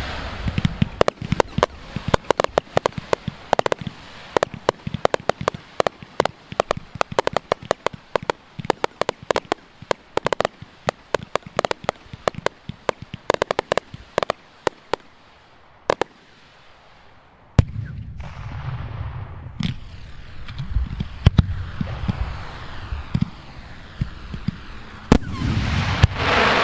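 Fireworks display heard from a distance: rapid volleys of sharp cracking reports for about the first fifteen seconds, then a brief lull. From about two-thirds of the way in, deep booming shell bursts and rumbling take over and grow louder near the end.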